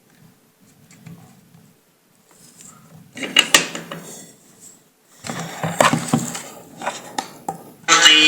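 Clattering and scraping of small parts and tools being handled on a workbench, in two bursts with sharp clicks. A steady pitched sound starts near the end.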